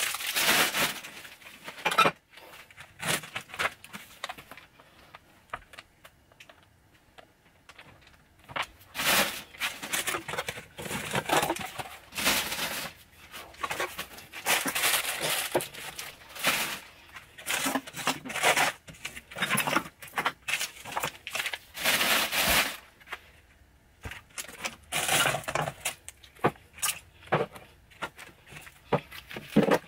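Gloved hands moving glass jars, tins and plastic bottles out of a cluttered cupboard: clinks and knocks of glass and metal, crinkling plastic packets and scraping over gritty debris, in irregular bursts with a quieter stretch about five seconds in.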